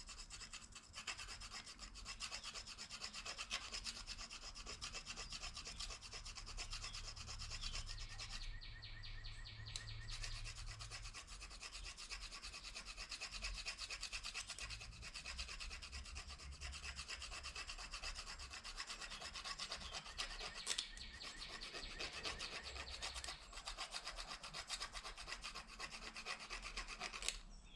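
Plastic fork scraping back and forth over a plastic spoon in rapid, continuous strokes, filing at the edge of the spoon's underside to sharpen it; it stops just before the end.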